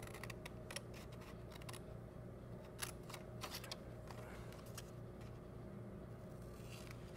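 Scissors cutting manila folder card, a series of sharp snips in short runs: a cluster in the first two seconds, another around three seconds in, and more near the end. A faint steady hum lies underneath.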